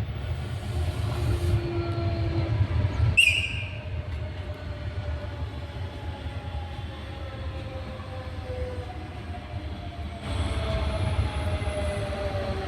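Rodalies electric commuter train running on the line with a steady low rumble, its motor whine sliding slowly down in pitch as it slows. A short, sharp high-pitched sound stands out about three seconds in, and the rumble grows louder again near the end.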